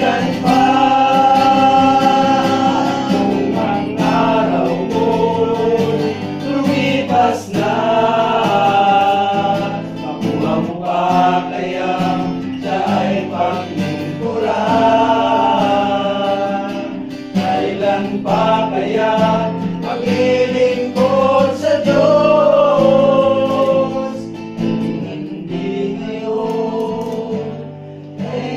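A group of men singing a Christian song together, several voices held and moving at once.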